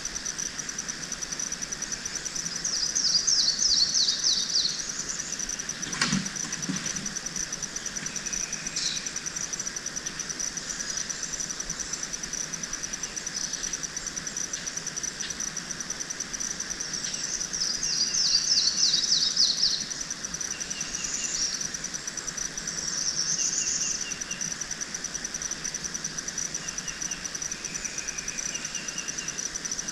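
Insects trilling steadily at a high pitch, with a songbird singing two phrases of quick falling notes, about 3 seconds in and again about 18 seconds in, and short repeated bird chirps in the second half. A single sharp knock sounds about 6 seconds in.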